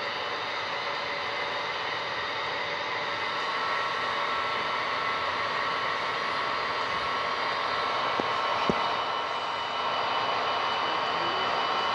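Model train running on its track: a steady whir of the locomotive's electric motor and gearing with wheels rolling on the rails, with two short sharp clicks about two-thirds of the way through.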